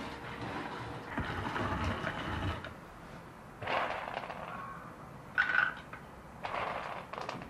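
Hand-cranked rotary drum grater grinding shelled walnut and hazelnut kernels: a gritty, rumbling crunch for about the first two and a half seconds. It then goes quieter, broken by a few sharp knocks and clatters as the grater and hopper are handled, the loudest about five and a half seconds in.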